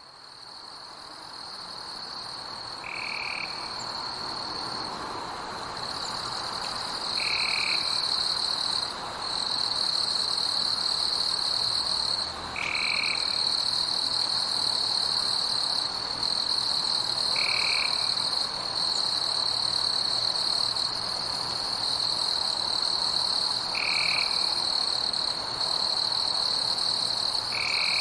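Night forest ambience: a steady, high-pitched chorus of insects trilling, with a short call repeating about every four to five seconds. It fades in over the first several seconds.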